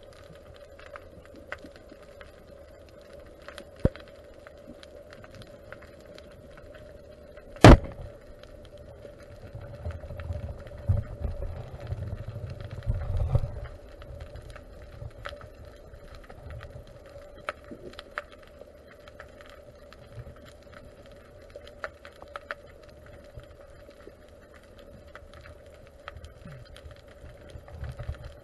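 Underwater sound picked up by a camera in its housing on a selfie stick during a freedive descent: a steady hum under scattered clicks, one sharp knock about eight seconds in, and low rumbling of water movement from about ten to fourteen seconds in and again near the end.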